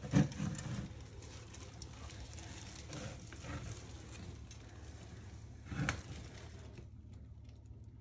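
Handling noise from the flexible aluminium dryer duct and the nest being held and moved: a sharp knock just after the start and another about six seconds in, with light bumps and rustling between.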